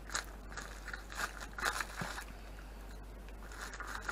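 Scissors cutting through a plastic mailer bag in short, irregular snips, with a quieter pause in the second half before more snips near the end.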